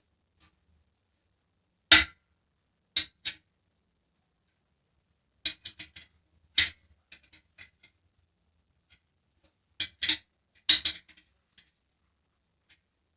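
Irregular sharp clicks and knocks of hard objects being handled, a few of them with a short ring, coming in small clusters with pauses between.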